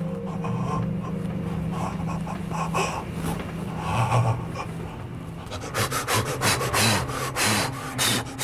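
A séance medium breathing heavily in rasping breaths, which turn louder and quicker about two thirds of the way in. A low steady drone runs underneath until then.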